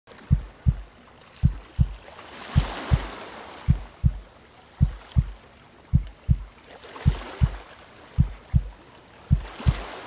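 A deep heartbeat sound effect, a steady double thump (lub-dub) just under once a second, layered over gentle ocean waves that swell and wash back every few seconds.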